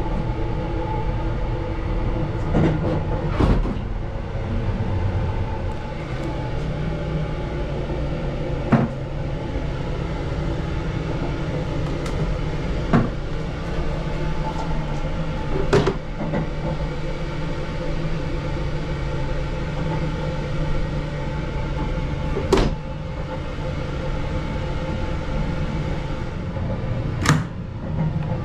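Keisei Skyliner limited-express train running at speed, heard from inside its small toilet compartment: a steady rumble with a low hum. About seven sharp knocks or rattles come at irregular moments.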